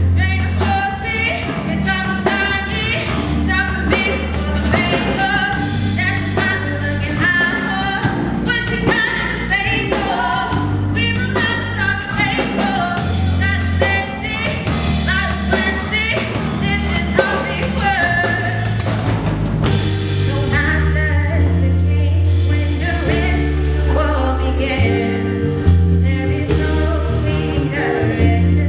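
Live band performing a rock-soul song: a female lead voice sung into a handheld microphone over electric bass, drum kit and keyboard. About two-thirds of the way through, the bright cymbal highs drop away and held chords carry on under the voice.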